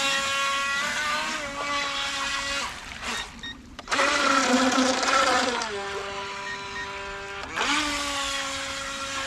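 Electric motor of a DEERC H120 RC speedboat whining as it runs, its pitch stepping up and down with the throttle. It cuts out briefly about three seconds in, comes back loud, drops to a lower pitch for a couple of seconds, then rises again near the end.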